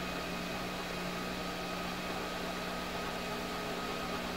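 CTC Duplicator 4 3D printer running while its extruder feeds filament out of the hot nozzle during loading: a steady mechanical hum with a few faint constant whining tones.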